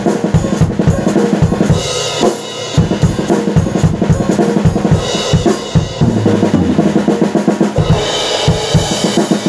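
Drum kit played fast, with rapid bass drum and snare strokes and cymbal crashes swelling in about two, five and eight seconds in.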